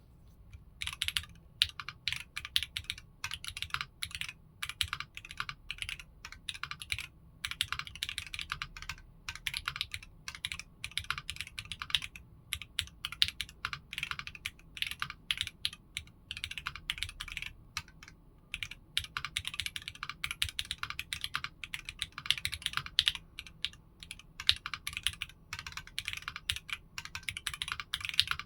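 Typing on a foamless Tech Bear 8-TKL mechanical keyboard, with no case, plate or PCB foam, an aluminium plate and Strawberry Jelly v2 switches: quick, steady keystrokes starting about a second in, broken by a few short pauses.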